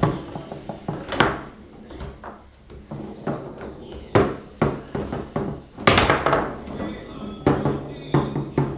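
Foosball table in play on an Ullrich table: irregular sharp knocks and clacks as the ball is struck by the figures, rattles against the table walls and the rods jolt in their bearings. The loudest crack comes about six seconds in.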